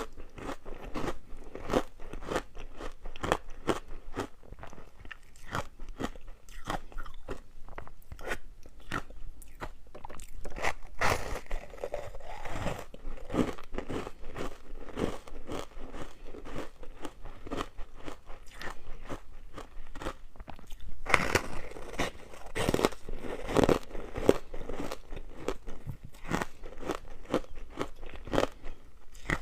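Ice with matcha powder being bitten and chewed: a dense, irregular run of crunches and cracks, louder in two stretches, the second one longer.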